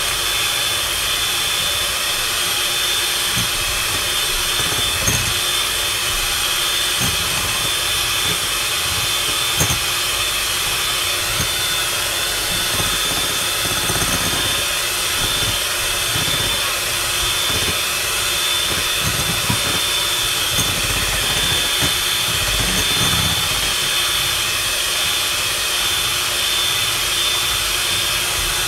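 Electric hand mixer running steadily with a high whine, its beaters beating eggs in a glass bowl, with occasional low knocks.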